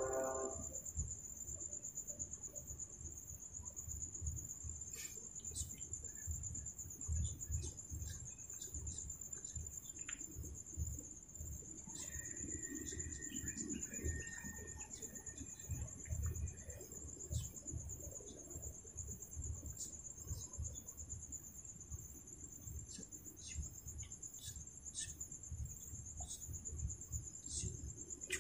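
Crickets chirring in one steady, high-pitched drone, with faint low thumps and rumbles and a few light clicks.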